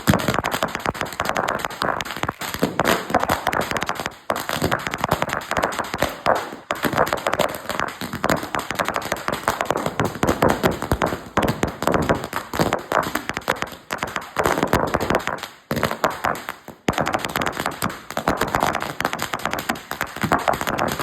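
A 5000-wala firecracker string going off: a dense, rapid crackle of small bangs with a few brief breaks.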